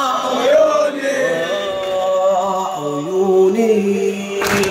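A male reciter chanting a Shia mourning lament (latmiyya) through a microphone and loudspeakers, drawing out long wordless held notes that step upward about three seconds in. A short noisy burst comes near the end.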